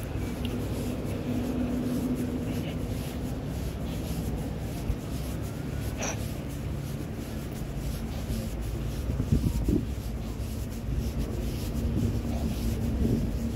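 Wind buffeting the microphone as a low, uneven rumble, with a faint steady hum at times and a brief high squeak about six seconds in.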